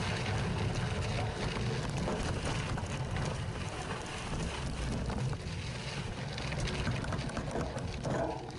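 Trek 920 gravel bike rolling along a dirt trail: tyres crunching over loose dirt and small stones with many small rattling clicks, over a steady rumble of wind on the handlebar-mounted camera's microphone.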